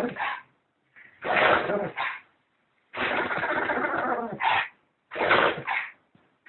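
Dog sneezing several times in a row: noisy bursts about two seconds apart, each ending in a short second puff, one of them longer than the rest.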